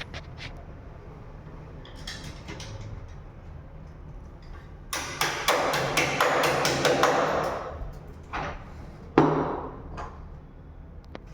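Handling noises during wiring work: a few scattered clicks, then about three seconds of rapid rattling and scraping, and a single sharp knock near the end.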